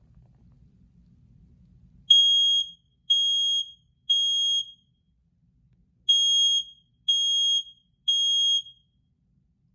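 First Alert hardwired smoke alarm sounding on test: loud, high-pitched beeps in the temporal-three pattern, two rounds of three beeps with a pause between, starting about two seconds in.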